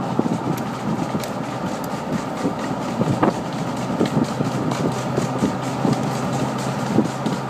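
Engine and road noise inside a car driving slowly: a steady low hum under tyre rumble, with irregular knocks and rattles throughout.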